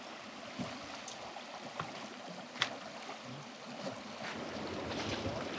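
Faint steady rush of flowing river water, with a few light clicks in the middle and the rushing growing a little louder near the end.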